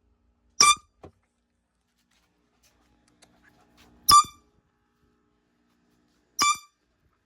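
Hand-held air horn giving three short, sharp blasts: about half a second in, about four seconds in, and near the end. Faint low sounds come between the second and third blasts.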